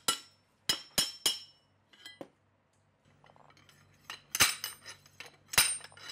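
Steel rod clinking and knocking against the engine-mount bracket of a Honda 40 outboard, with sharp, briefly ringing metal-on-metal strikes: five quick ones in the first couple of seconds, then two louder ones. The rod is being worked through the mount to get out the worn, corroded upper engine mounts.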